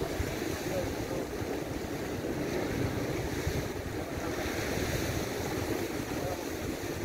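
Sea surf washing and breaking against shoreline rocks, a steady wash of noise, with wind buffeting the microphone.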